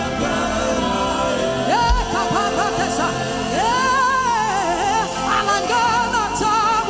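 Gospel worship music: a singer holds long, wavering notes over a sustained keyboard backing.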